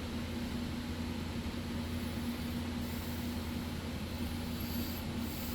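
Steady low mechanical hum with a constant tone, unchanging throughout.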